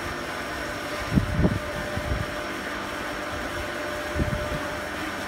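Electric chain hoist of a boat lift running steadily as it lowers a sailboat, a constant mechanical hum with thin steady tones. A few low bumps stand out about a second in and again near the end.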